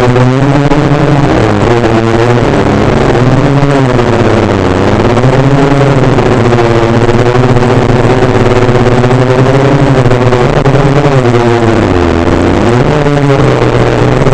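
Four brushless motors and propellers of a DJI F450 quadcopter droning loudly in flight, heard close up. Their pitch keeps rising and falling every second or two as the throttle changes.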